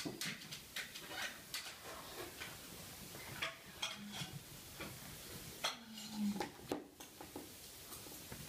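Yorkshire terrier puppy playing with a rubber dumbbell toy and a ball on a hard terrazzo floor: scattered clicks, knocks and clatter as the toys and the puppy's feet hit the floor, with two brief low-pitched sounds midway.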